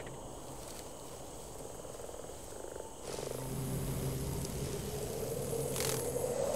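Forest ambience of croaking frogs and insects. About three seconds in, a low hum and a slowly rising tone join it, and a brief whoosh sounds near the end.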